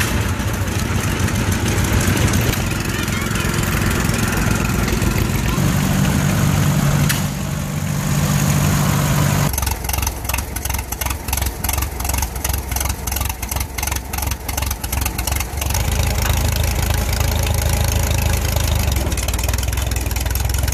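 John Deere 420 two-cylinder tractor engine running as the tractor drives past. About nine seconds in, an antique steel-wheeled tractor's engine takes over, firing in slow, even beats about three a second, then running steadier from about sixteen seconds in.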